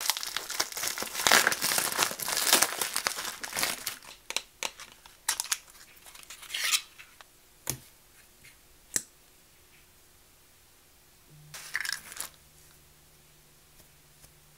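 Plastic bubble wrap crinkling and rustling as it is pulled open by hand, dense with crackles for the first few seconds, then in short scattered bursts and a few sharp single clicks. It goes quiet, with one more brief crinkle near the end.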